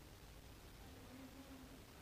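Near silence: room tone, with a faint short low tone around the middle.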